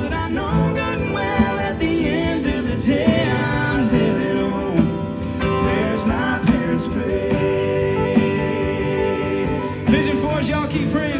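Live southern gospel quartet singing with full band accompaniment, guitar among the instruments, the song continuing.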